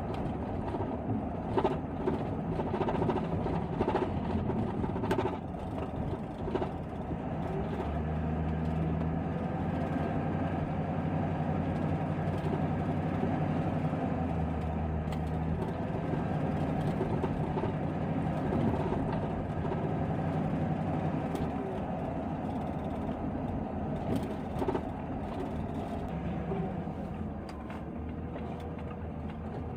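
A van driving: steady engine hum and road noise, with the engine note strongest through the middle.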